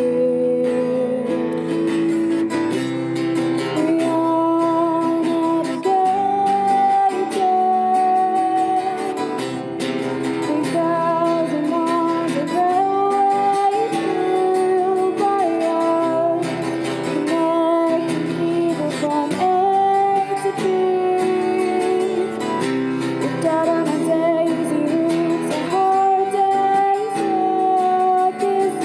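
A song sung to a strummed acoustic guitar, the voice holding long notes.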